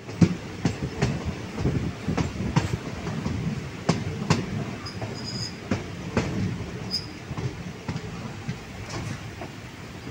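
Passenger train carriage running along the track: a steady low rumble with irregular clicks and knocks from the wheels passing over rail joints.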